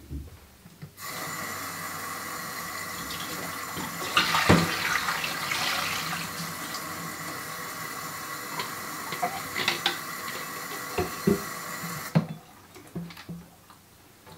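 Kitchen faucet running into a stainless steel sink, the water splashing into a plastic film developing tank to wash the negatives after the fixer. The water stops about twelve seconds in, with a few knocks of the tank against the sink near the end.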